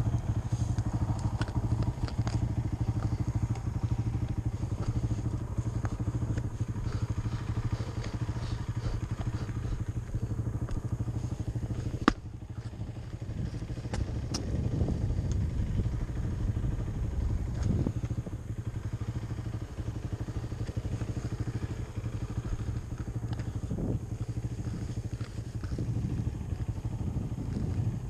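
Quad (ATV) engine running steadily while riding over ice, with scattered clicks and clatter from ice chips under the tyres. One sharp knock about twelve seconds in.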